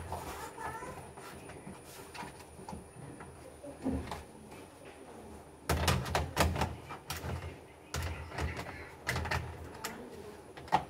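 Plastic clicks and knocks from a Dell Inspiron 15 3000 laptop's case being handled and pressed by hand, with a burst of sharp clicks about halfway through and a few more in the later seconds.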